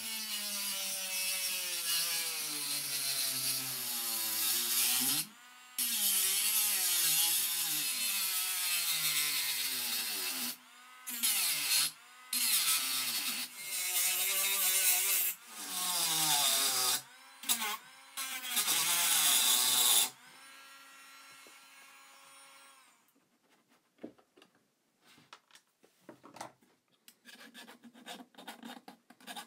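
Proxxon rotary tool grinding through the corner of a Mean Well power supply's sheet-metal casing in a series of passes with short pauses between them. Its whine dips and recovers in pitch as the bit bites into the metal. The tool winds down about twenty seconds in, and near the end a file scrapes along the cut edge.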